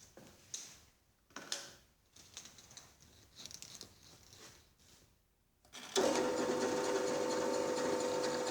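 A few light knocks and rubs of handling, then a bench drilling machine's motor is switched on about six seconds in and runs at a steady hum.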